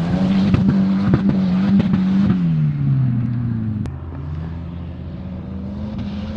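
Turbocharged Volvo 940 engine running at steady revs, with scattered knocks over a noisy hiss. About two and a half seconds in the revs drop away, there is a sharp click, and then the revs climb slowly again.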